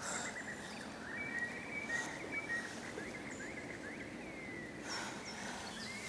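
Forest ambience: several small birds chirping and singing in short rising and falling calls over a steady outdoor hiss, with a short soft rush of noise about five seconds in.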